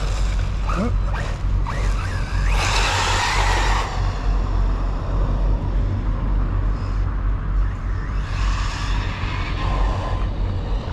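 Team Corally Syncro-4 electric RC car at speed on pavement. Its motor whine rises as it accelerates about a second in, and a rush of motor and tyre noise comes as it passes close, at about three seconds and again at about eight seconds, over a steady low rumble.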